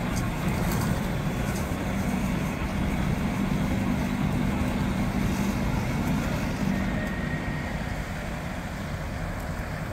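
Heavy truck's diesel engine running steadily at idle, a low even drone that eases off a little near the end.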